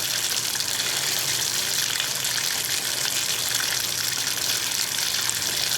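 Water running at very low pressure through a water heater, a steady low hiss.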